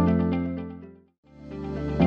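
Background music that fades out to silence a little past a second in, then fades back in.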